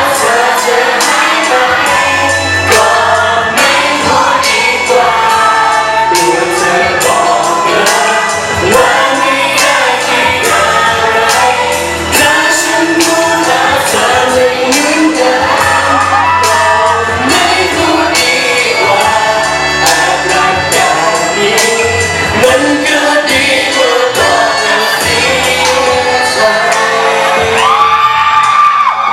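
Pop song with a steady beat and a singing voice, played loud over a hall sound system, with some crowd shouts mixed in.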